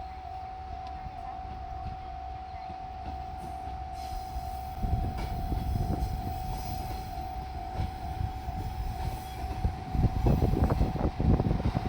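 Level crossing warning bell sounding steadily while a diesel train rumbles past; the engine and wheel noise swell about five seconds in and grow louder again near the end, with a quick run of wheel knocks over the rail joints.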